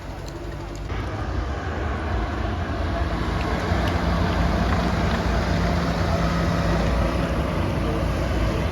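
Heavy military vehicle's engine running, growing louder from about a second in as it nears, with a steady low hum setting in about three seconds in.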